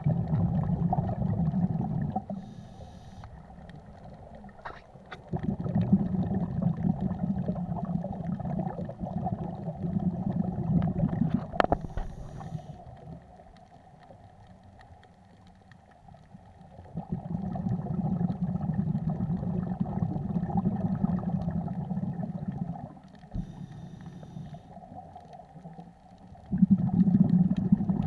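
Scuba regulator exhalation heard underwater: low bubbling rumbles as exhaled air bubbles stream out, each lasting several seconds, four times, with quieter gaps between.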